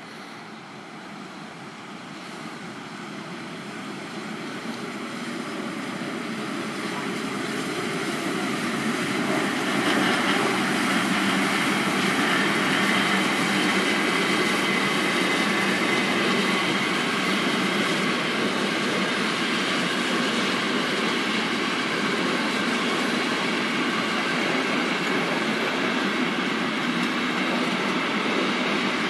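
BR 01 steam locomotive hauling a train of passenger coaches, approaching and passing close by. It grows steadily louder over the first ten seconds, then runs at an even loud level as the locomotive and coaches go by on the rails.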